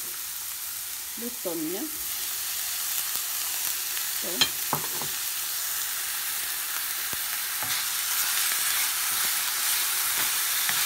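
Chopped onions and canned tuna sizzling in oil in a stainless steel frying pan, stirred and scraped with a wooden spoon. A sharp knock about four seconds in, and the sizzle grows louder near the end.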